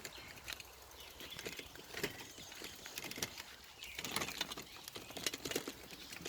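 Footsteps on a trail: irregular short scuffs and clicks, busiest about four to five and a half seconds in.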